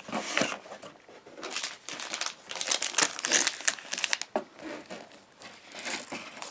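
Cardboard box and packaging being handled: irregular rustling and crinkling as items are taken out and set down.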